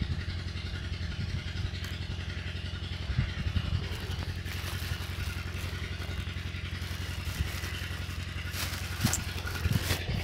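Steady low hum of an engine running at idle, with a couple of short knocks near the end.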